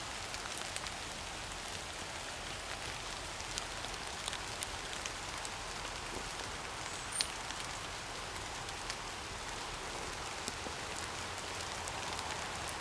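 Steady rain falling, with scattered drops ticking close by, and a brief high chirp about seven seconds in.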